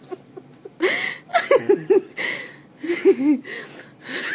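A person laughing hard in a string of breathy bursts, about five of them, starting about a second in, with short voiced squeals between.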